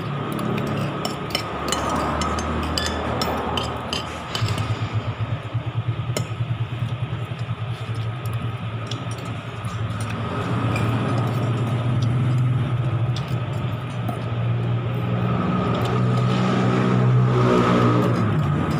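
A motor engine running steadily, its pitch rising a little near the end. In the first few seconds there are sharp clinks and scrapes of a spoon on a plate.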